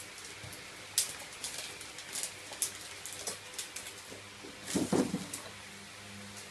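Scattered light clicks and taps, with a sharp click about a second in and a louder, longer noise about five seconds in.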